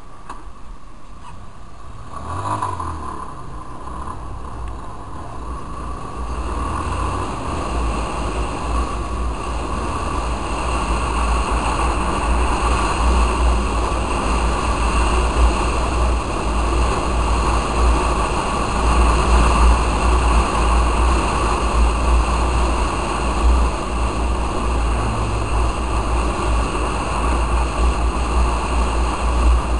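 Yamaha Fazer 250 motorcycle riding along a road: wind rushing over the microphone with engine and road noise. It grows louder over the first several seconds, and a heavy low rumble of wind buffeting then holds steady.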